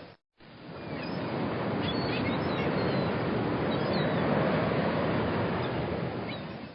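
Sea surf washing steadily, with gulls crying faintly over it in short calls. It drops to a brief silence just after the start and fades back in, then fades out again at the end.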